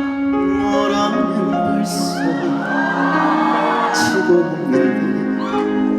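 Instrumental introduction of a slow ballad played over the stage sound system, with sustained chords. Audience voices call out over the music in the middle.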